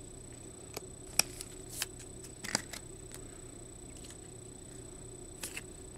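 Baseball cards being handled and slid into rigid plastic toploaders and set on stacks: scattered light clicks and rustles, the sharpest about a second in, over a faint steady electrical hum.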